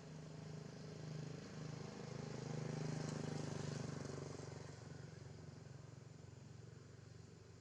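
A motor vehicle passing by: a low engine hum grows louder to a peak about three seconds in, then fades away.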